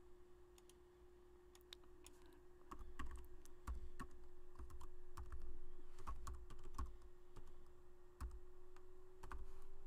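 Typing on a computer keyboard: irregular keystroke clicks starting about two seconds in, over a faint steady hum.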